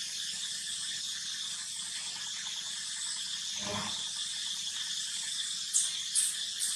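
Steady high-pitched insect chorus. A short low sound comes just past the middle, and three quick sharp high chirps come near the end.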